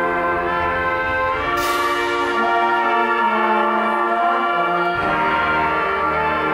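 Concert band of woodwinds and brass playing slow, sustained chords, with a crash about one and a half seconds in. The low instruments drop out for a few seconds and come back in about five seconds in.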